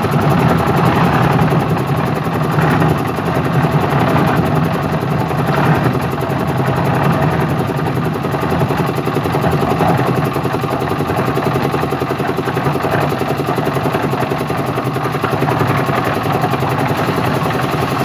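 Engine of a concrete mixer machine running steadily, an even, unchanging mechanical drone.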